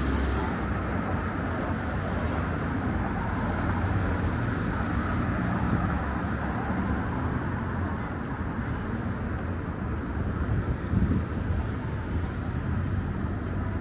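Downtown street traffic: a steady wash of passing cars with a low rumble, and a few brief louder bumps a little after ten seconds in.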